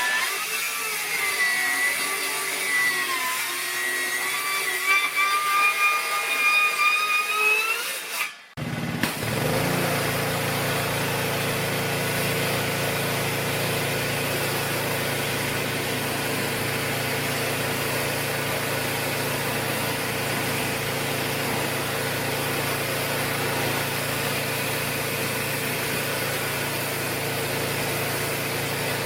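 A power tool whining, its pitch sagging and rising for about eight seconds. After a brief cut, a small engine takes over and runs steadily at an even speed.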